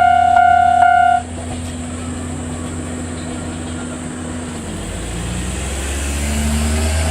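Japanese railway level-crossing warning signal ringing in a steady repeating tone, cutting off suddenly about a second in. After it, a steady rumble, with an engine rising in pitch from about five seconds in.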